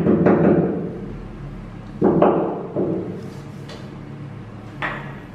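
A few separate hammer blows on steel sleeve anchors being driven into drilled holes in a tiled wall, each a sharp knock that rings briefly. The blows are spaced a second or more apart, and the last one comes near the end.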